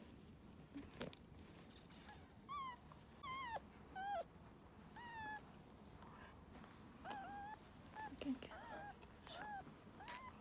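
Newborn toy poodle puppy squeaking: about a dozen short, high cries that rise and fall in pitch, starting about two seconds in.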